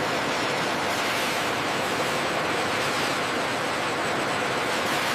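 A steady, even rushing hiss at constant level, with no rhythm or pitch change.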